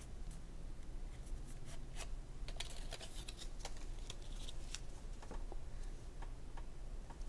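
Game cards and a plastic box insert being handled: a deck of cards lifted out of the tray, giving a scatter of small clicks and rustles, busiest in the middle, over a low steady hum.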